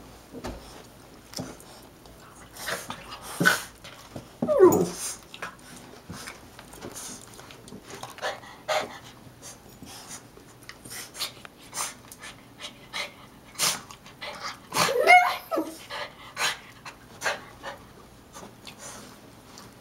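Small dogs, a Shih-tzu/Maltese and a Yorkie/Maltese mix, panting and whimpering in an excited greeting. Two longer whines that fall and waver in pitch come about four and fifteen seconds in.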